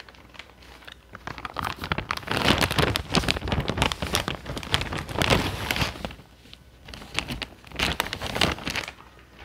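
Plastic packaging crinkling and rustling as it is handled, in two stretches of dense crackle, the first and longer one loudest.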